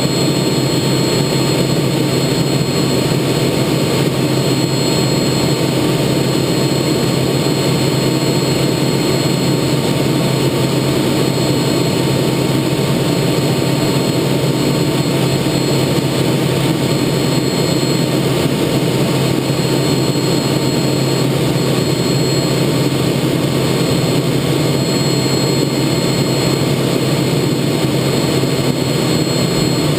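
Jet engine and airflow noise inside the cockpit of a TA-4J Skyhawk in flight, its Pratt & Whitney J52 turbojet running at a constant power setting. A dense, even rumble with a thin, steady high whine over it, unchanging throughout.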